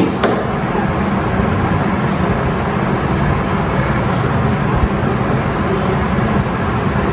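Steady low rumble with a hiss over it, unbroken throughout, and one sharp click about a quarter second in as a perfume bottle is handled.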